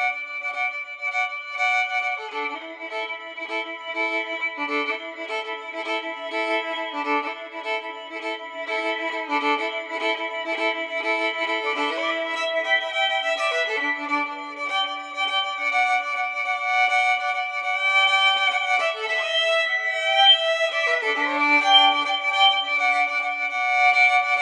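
Music made of several held, overlapping high notes that change every second or two, with no bass.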